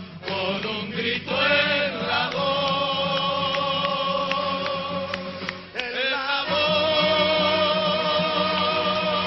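Music with voices singing long held notes with vibrato over a steady low accompaniment, pausing briefly about six seconds in before the next held chord.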